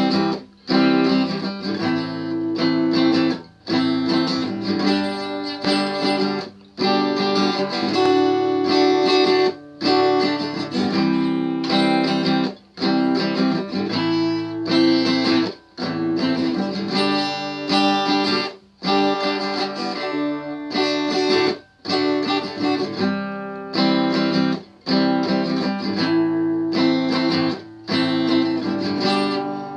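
Guitar music, plucked and strummed notes played in phrases, with a brief break in the sound about every three seconds.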